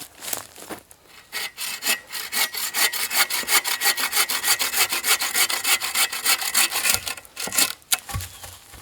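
Hand saw cutting through a wooden pole in quick, even back-and-forth strokes. It starts with a few slower strokes and stops near the end.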